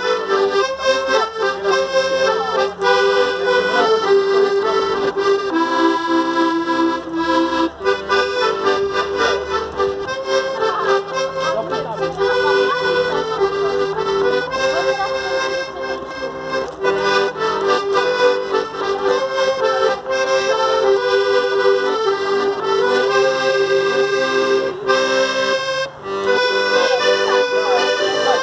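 Piano accordion playing a tune: a melody moving over held chord notes, steady throughout.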